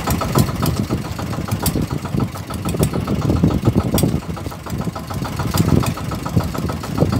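Fishing boat's engine running steadily with a fast, even chugging beat.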